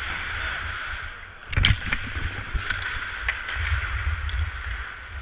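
Ice hockey skates scraping and carving on the ice, with a low rumble of wind on the camera's microphone. A single sharp clack comes about a second and a half in, like a stick or puck strike, followed by a few lighter clicks.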